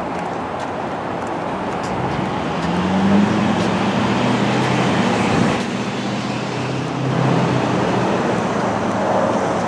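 Road traffic: a motor vehicle's engine running over tyre and road noise, its low hum swelling about three seconds in and again near the end.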